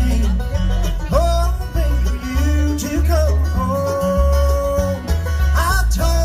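Bluegrass band playing with banjo, guitar, mandolin, bass and fiddle, a steady bass line under it. A lead line slides up into its notes and holds one long note about four seconds in.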